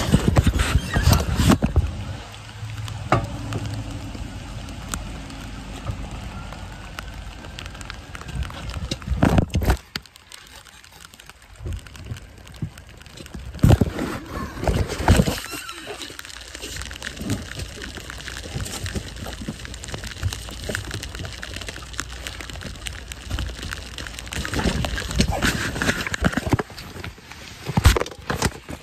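Handling noise from a phone held or carried with its lens covered: muffled rustling and scraping, with irregular knocks and several sharper bumps, including one about a second in and another near the end.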